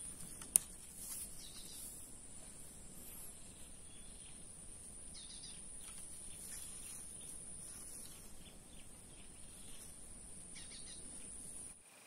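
Faint outdoor ambience: a steady high-pitched insect drone with scattered short bird chirps, and a single sharp click about half a second in. The drone cuts off suddenly near the end.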